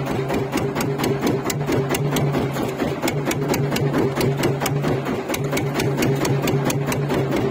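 A small engine on the fishing boat running steadily, with an even clatter of about five or six knocks a second over a low hum.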